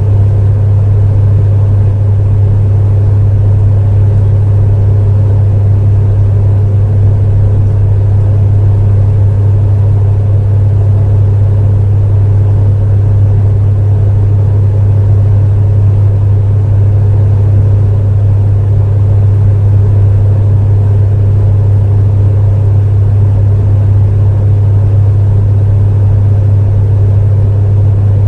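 Space heater running steadily: a loud, unchanging low hum with a fainter even fan hiss above it.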